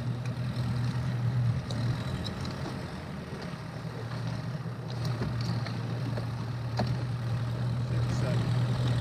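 Bass boat outboard motors idling, a steady low hum.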